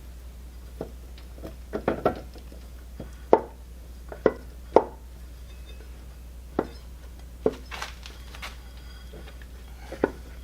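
Hand tools knocking and clinking against the metal parts of a milling-machine head being taken apart: about a dozen sharp, irregular knocks, a few close together, over a steady low hum.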